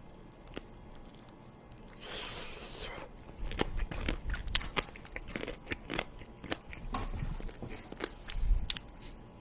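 Close-up crunchy chewing: a person biting into and eating something crisp, with many sharp crunches starting about three seconds in.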